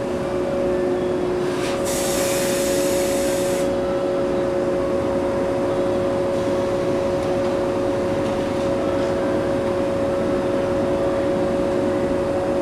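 Old JNR-era local electric train standing at the platform, its onboard equipment giving a steady hum with two held tones. About two seconds in comes a hiss of air lasting nearly two seconds.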